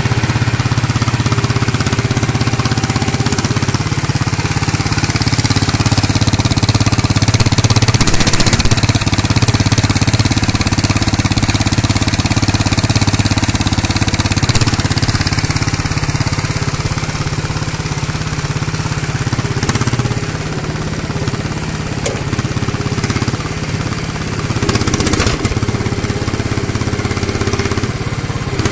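Motor of a homemade hydraulic RC excavator running steadily, its loudness swelling a little now and then.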